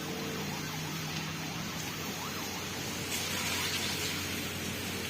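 Steady street traffic noise, with an even hum of engines and road noise.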